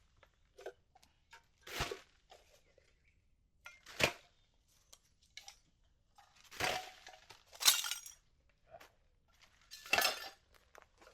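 Discarded litter clinking and rattling as it is picked up and put into a bin bag: a run of small knocks with several louder clattering, crackling bursts.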